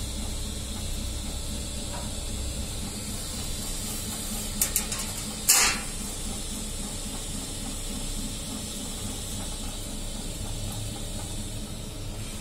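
An FDM 3D printer running mid-print in PETG: a steady hiss and hum from its fans and motors. Two quick clicks come a little before the middle, followed by a short, loud burst of noise.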